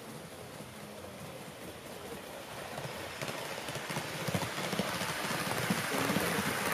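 HO-gauge model of a JR Hokkaido Super Hokuto diesel express running on the layout track, its wheels clicking and rattling over the rails, growing louder as it approaches and passes close by.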